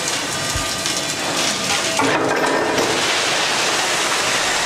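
Coal hopper wagons making a steady rushing, crackling noise with scattered clinks and faint thin tones.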